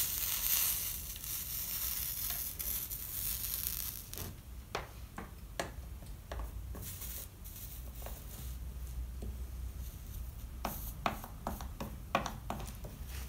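Scattered light clicks and taps of leaded stained glass panels and tools being handled on a workbench, several in quick succession near the end. A faint hiss fades out over the first few seconds.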